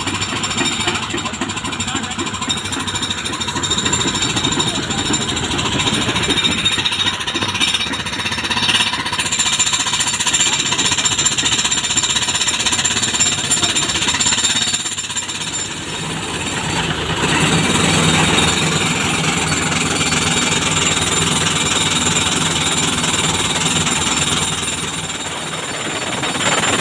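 Pneumatic jackhammer, fed by a tractor-hitched air compressor, hammering rapidly and without a break on rock at the bottom of a hand-dug well. Partway through, a steady lower machine hum comes up under the hammering.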